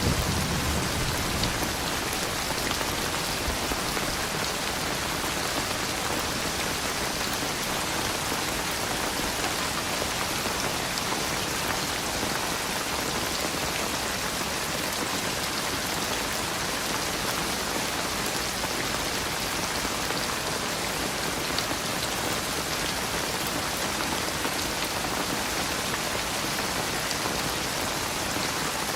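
Steady rain falling in an even hiss, with a low thunder rumble dying away in the first second or two.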